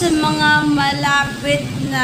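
Background song with a singing voice holding steady notes.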